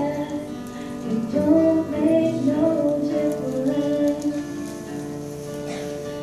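Secondary-school choir singing together in long held notes, the pitch moving from note to note.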